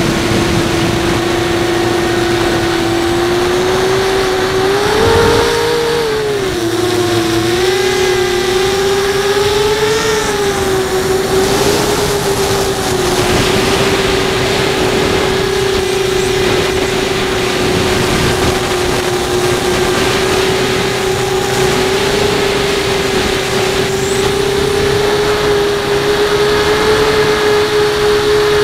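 Brushless motors and 5-inch props of an FPV racing quadcopter (Brotherhobby Returner R5 motors, HQProp 5" props) giving a steady whine in flight, with wind noise. The pitch rises and wobbles with throttle changes about four to ten seconds in, then holds nearly steady.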